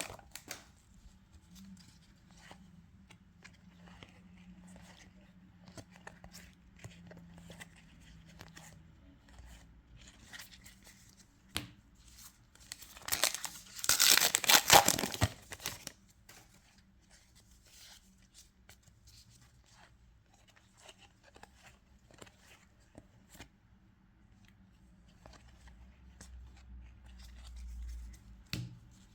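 Foil trading-card booster pack wrapper torn open with a loud crinkling rip a little before halfway through, between quieter rustling and small clicks of handling.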